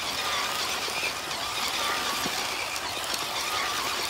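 Small electric motor and gears of a radio-controlled toy car whining, the pitch wavering up and down, over a steady hiss.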